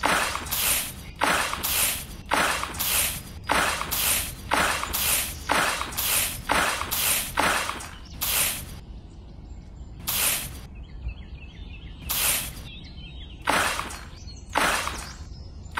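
Repeated short bursts of hissing, about two a second, thinning out after about eight seconds to one every second or two. Faint chirps sound in the gaps.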